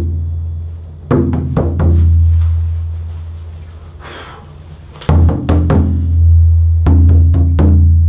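Rawhide frame drum being struck: a few hand taps about a second in, then a run of beater strokes from about five seconds in, each hit leaving a deep ringing boom that carries on between strokes. The skin, warmed and dried by the fire, has its resonant tone back in place of the dull thud it had when damp and slack.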